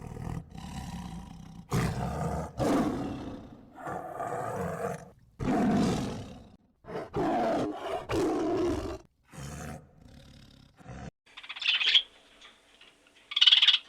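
A big cat roaring in a series of deep, rough roars and growls. About eleven seconds in, the roaring stops and a bird chirps in short bursts.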